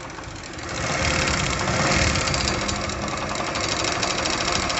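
Single-cylinder four-stroke engine of a Chinese Honda CD 70-type motorcycle running with a fast, steady clattering tick, growing louder about a second in. The noise is put down to a worn timing chain set.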